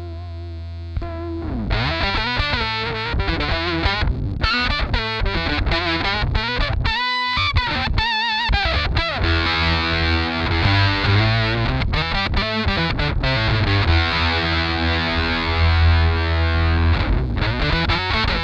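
Electric guitar played through a Stomp Audio Labs Octopus analogue octave pedal, the octave-down voice adding a strong bass under each note and the octave-up voice a sharp treble. Single-note phrases with wide vibrato give way after about nine seconds to long sustained notes.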